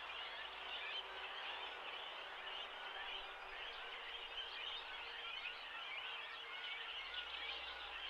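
Great cormorant nesting colony: many short, high bird calls overlapping in a steady, dense chorus.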